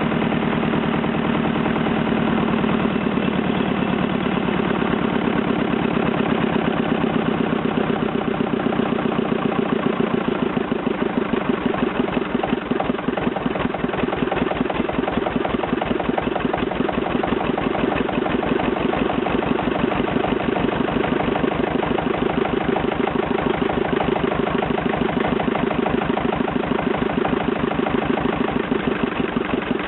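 Petter AVA2 air-cooled two-cylinder diesel engine running steadily at idle with an even, rapid firing beat, freshly restored.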